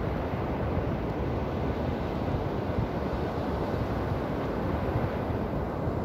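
Ocean surf: a steady rush of waves breaking offshore and washing up onto a sandy beach, with a deep rumble underneath.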